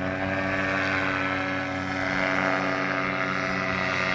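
Paramotor engine and propeller running at steady power, a continuous drone from the powered paraglider climbing away after launch.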